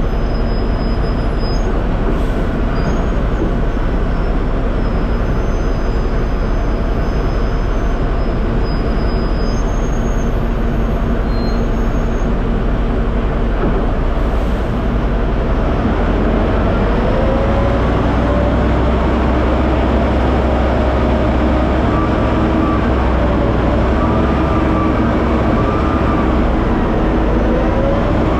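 Liebherr LTM1350-6.1 mobile crane's engine and machinery running: a loud, steady rumble. About 16 seconds in, a deeper drone sets in and faint whining tones glide up and down.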